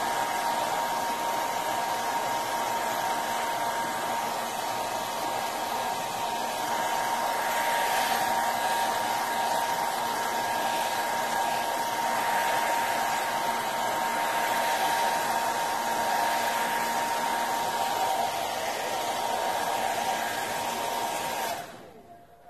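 Handheld 1875-watt hair dryer running steadily, a rush of air with a steady whine through it, switched off near the end.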